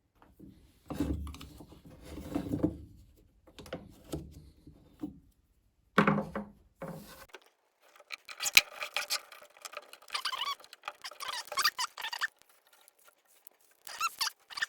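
Hands working on a small-engine recoil starter: irregular scraping, rattling and clicks of the pulley, spring housing and pull cord as the cord is rewound.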